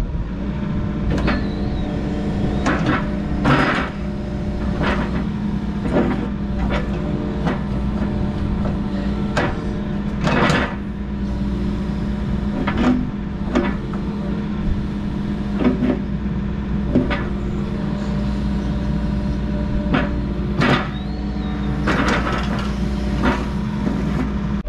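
Yanmar mini excavator's diesel engine running steadily while the bucket is worked through its curl and roll-back. Over the engine comes a string of irregular sharp clunks and clicks, about one a second.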